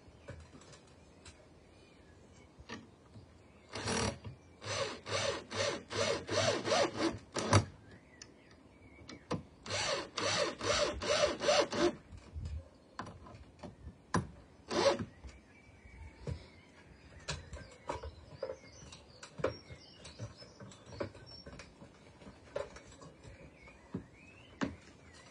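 Cordless drill driving screws into a timber frame beam: two long pulsing bursts of a few seconds each, then a brief third one. After that, scattered light knocks and clatter.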